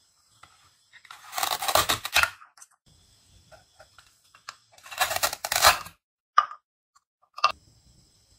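Velcro ripping apart twice, about a second each time, as two plastic toy oranges are split into halves. Two short knocks follow as plastic halves are set down on a wooden cutting board.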